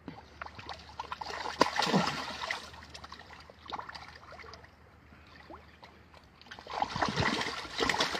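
Water splashing and sloshing, in two louder bouts: one about a second in and another near the end.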